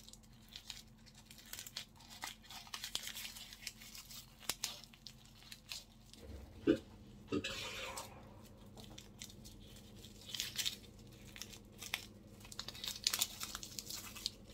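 Paper baking cup crinkling and tearing as it is peeled off a baked custard tart, a run of soft, irregular crackles. Two brief, louder low blips come about halfway through.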